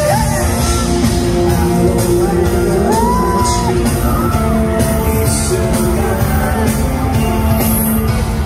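Live band music heard from the audience in a large concert hall: electric guitar and a full band with singing, joined by shouts and yells from the crowd.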